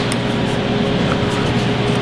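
Background music with sustained steady notes, under a few faint light clicks.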